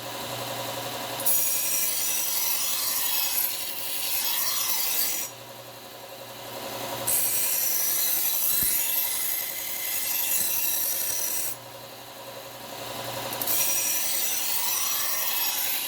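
Bucktool slow-speed bench belt sander running with a steady hum, and a knife blade held to the moving belt in three long grinding passes of about four seconds each. Short gaps between the passes hold only the motor hum. The edge is being ground toward an apex and is not apexed yet.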